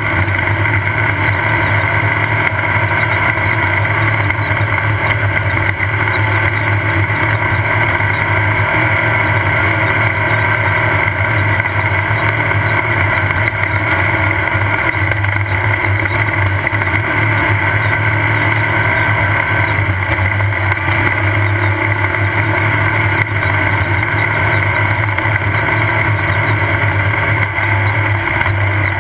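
Off-road race car's engine running steadily at race speed, mixed with road and wind noise, heard from on board the vehicle.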